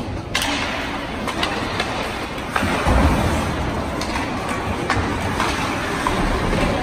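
Ice hockey play in a rink: a steady rumble of skates and arena noise, with scattered sharp clicks of sticks and puck.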